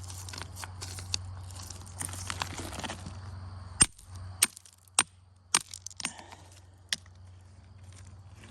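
Shuffling and crunching on creek gravel, then about six sharp stone-on-stone cracks spread over three seconds, the first the loudest: chert cobbles being struck together to test their quality.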